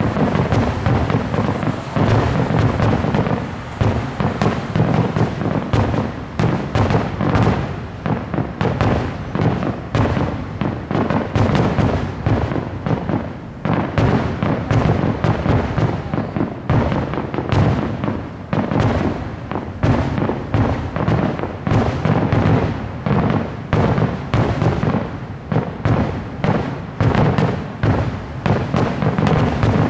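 Aerial fireworks shells bursting in a rapid, unbroken barrage: booms overlapping several times a second, mixed with crackling.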